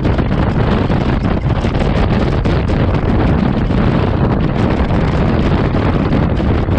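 Wind buffeting a GoPro Hero 7 Black's microphone while it rides on a Honda Forza 125 scooter at road speed: a loud, steady rush, heaviest in the low end, with no clear engine note standing out.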